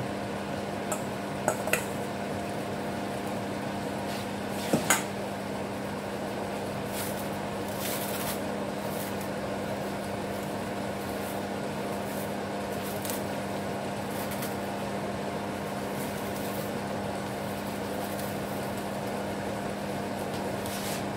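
Rice noodles, prawns and squid sizzling softly in a frying pan over a steady electrical hum. A few sharp clinks of utensils on the pan come near the start and about five seconds in.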